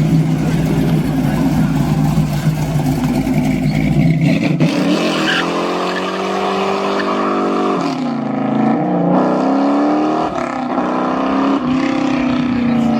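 A modified car's engine: a steady deep drone, then from about four and a half seconds in it is revved up and down several times, the pitch climbing and dropping repeatedly.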